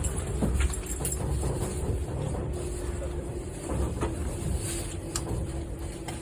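Running noise inside a JR 185 series train car: a steady low rumble with a faint steady hum and a few short sharp clicks.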